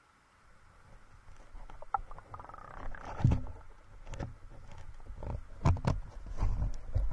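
Underwater camera being raised out of a pond: water sloshing and splashing around the housing, with a series of knocks and thumps from the camera and its pole, the loudest about three and six seconds in.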